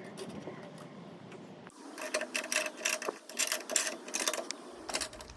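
Ratchet spanner clicking in quick, uneven strokes from about two seconds in, as a bolt is worked on.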